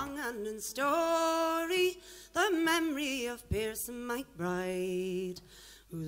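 A woman's solo voice singing a slow folk melody unaccompanied, holding notes with a light waver and breaking between phrases with brief pauses.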